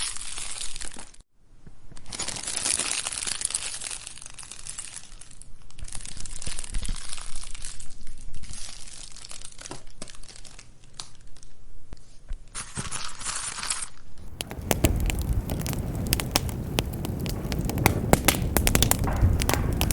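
Wood fire in a fireplace crackling, with dense small snaps and pops over a hiss. The sound drops out briefly about a second in. From about fourteen seconds it turns fuller, with a low rush of flames under sharper, more frequent pops.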